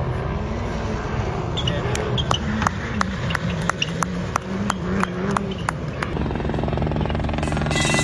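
Rally car engine on a gravel stage, its note rising and falling as the car accelerates and lifts. From about a second and a half in to about six seconds there is a regular run of sharp pops, about three a second; near the end a louder, harsher sound sets in.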